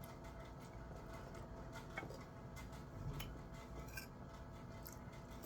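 Faint eating sounds: a few light clicks and taps at the table over a low steady hum.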